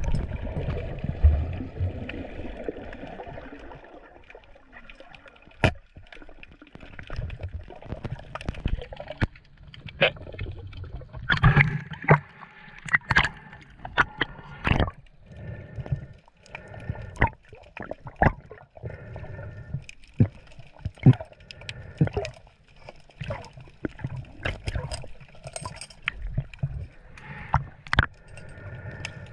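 Seawater sloshing and gurgling, with irregular sharp knocks and clicks throughout.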